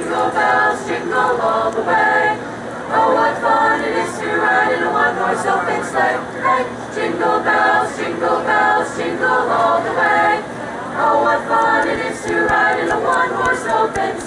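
High school choir singing a Christmas carol a cappella, several voices in harmony, in sung phrases with short breaks between them.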